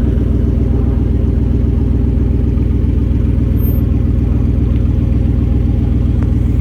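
An engine running steadily at a constant speed, loud and close, with an even low pulse.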